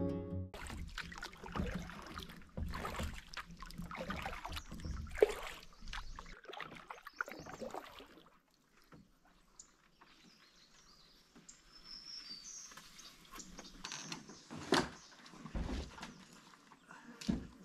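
Canoe being paddled in to shore: irregular paddle strokes and water sloshing against the hull. After a quiet stretch come a few faint bird chirps and a couple of sharp knocks near the end.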